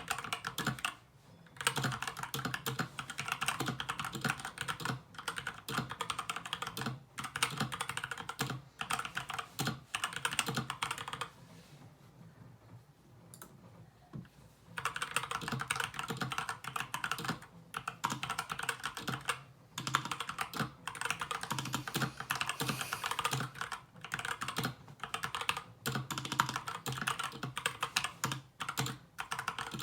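Continuous typing on an SK61 60% mechanical keyboard with lubed Gateron Brown tactile switches and pudding keycaps, a fast stream of key strokes. Typing pauses for about three seconds around a third of the way in, then resumes.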